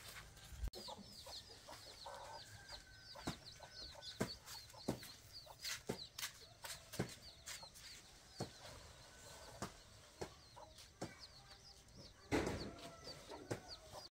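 Faint chickens: a rapid run of high, falling peeps for the first several seconds, with scattered light knocks and a louder scuffing noise near the end.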